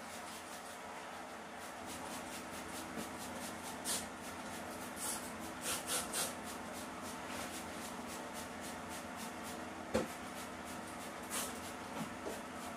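Trigger spray bottle squirting cleaner onto a bathtub in short hissing bursts: one about four seconds in, a quick run of three around six seconds, another near the end. Under it comes the rubbing of a gloved hand wiping the tub, and a single knock about ten seconds in.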